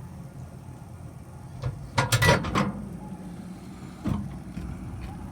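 Microwave oven door being opened: a quick cluster of latch clacks about two seconds in, then a single knock about four seconds in, over a steady low hum.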